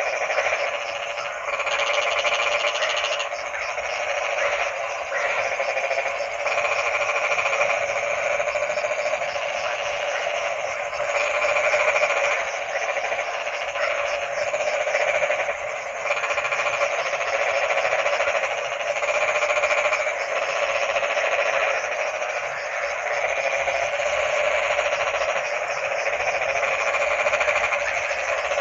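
Dense chorus of many frogs croaking together: overlapping rapid pulsed calls that swell and fade every second or two.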